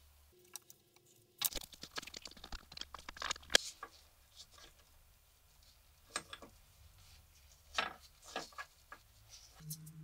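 Small metal clicks and rattles of a rusty steel padlock and its loose face plate being handled by gloved hands: a dense flurry of clicks starting about a second and a half in and lasting about two seconds, then a few scattered clicks.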